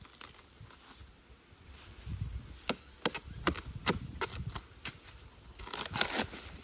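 A blade chopping into a bamboo shoot in a bamboo grove: a run of sharp, woody chops about half a second apart, starting a little before halfway in, with a denser burst of cutting and rustling near the end.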